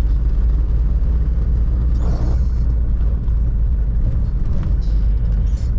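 Steady low rumble of a 1997 Toyota Hilux's 3.0-litre four-cylinder 5L diesel engine and road noise while driving, heard from inside the cab.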